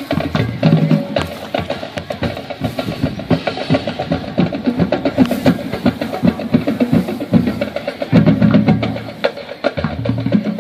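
High school marching band playing, with its drums and percussion prominent in rapid, dense strikes over low bass-drum hits.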